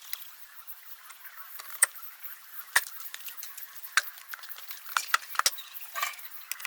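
Sharp metallic clicks and clinks of engine parts and tools being handled during reassembly: about half a dozen, irregularly spaced, several of them close together late on, with a short scrape near the end.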